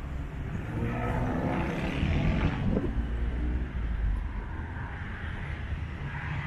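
A motor vehicle passing on the road, its engine loudest in the middle and then fading, over a steady low rumble.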